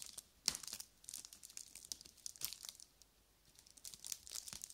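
Shiny foil wrapper of a giant chocolate egg crinkling and crackling in short scattered bursts while scissors cut the cloth cord tied around it.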